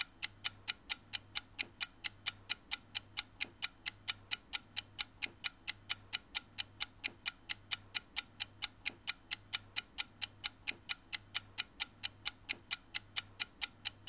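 Clock ticking at a steady, even pace, about four ticks a second, over a faint low hum.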